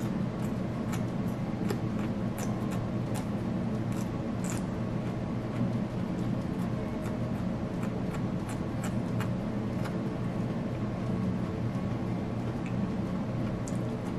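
Close-up eating sounds of a person chewing asparagus, with many small wet mouth clicks and crunches, more of them in the first half. A steady low hum runs underneath.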